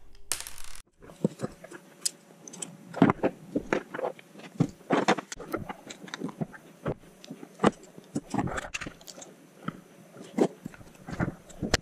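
3D-printed plastic fan duct parts being handled and fitted together, with irregular sharp clicks, taps and scrapes as small M3 nuts are pressed into the printed holes with a screwdriver.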